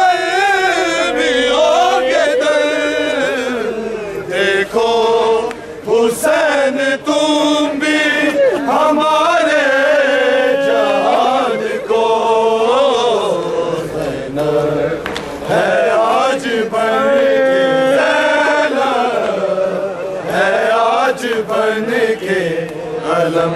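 Group of men chanting a noha, an Urdu mourning lament, in unison without instruments. Sharp slaps of matam, hands beating on chests, come at intervals through the singing.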